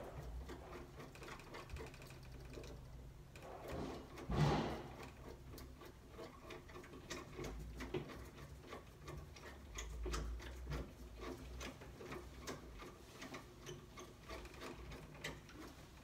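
Screwdriver turning the two fixing screws that hold a rim cylinder lock to the door: a run of small irregular clicks, with one louder knock about four seconds in.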